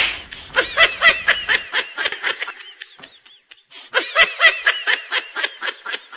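High-pitched laughter in quick repeated 'ha-ha' pulses. It dies away about three seconds in, and a second burst of laughing starts about a second later.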